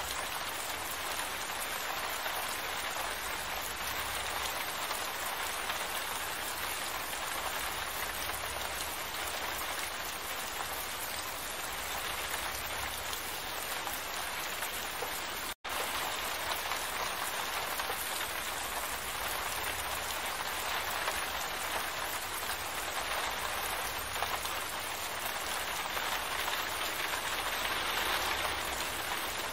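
Steady rain falling, an even hiss of many drops that cuts out for an instant about halfway through.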